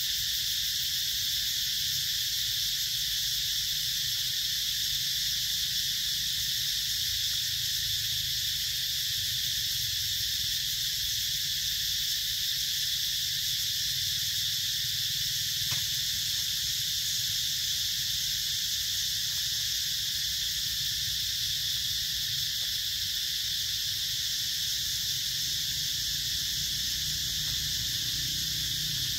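A steady, unbroken high-pitched chorus of insects, with a low rumble underneath.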